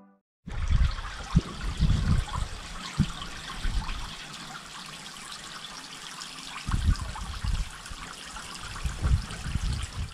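Garden pond fountain splashing and trickling onto the water surface, a steady fine splashing hiss. Irregular low rumbles come through it in the first few seconds and again in the second half.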